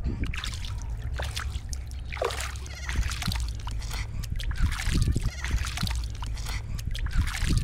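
Water splashing and sloshing in irregular bursts, over a steady low rumble.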